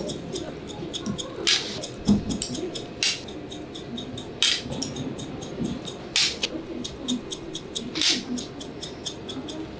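Hairdressing scissors snipping into dry hair, with many quick small snips in a row and a longer, brighter cut about every one and a half seconds. These are point or chop cuts that soften the blunt ends of the layers.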